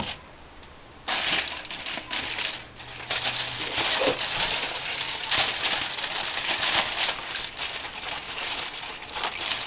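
Aluminium foil crinkling and rustling as hands press and shape a layer of minced meat on it. It starts about a second in and goes on irregularly.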